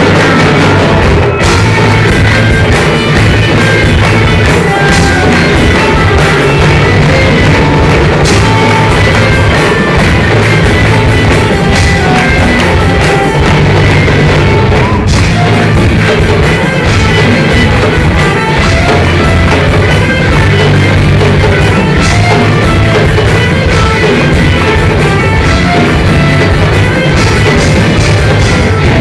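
Live rock band playing loudly, with electric guitars and drums.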